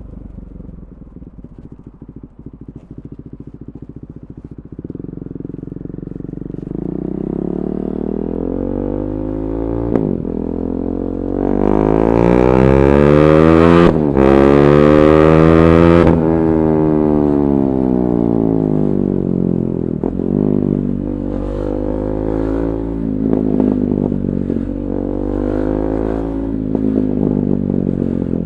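KTM 390 Duke's single-cylinder engine through an Akrapovic Moto2 slip-on exhaust with the catalytic converter removed. It runs low and uneven at first, then its pitch and loudness climb to a peak about halfway through, with a brief break at the top, and fall back. It ends running unevenly.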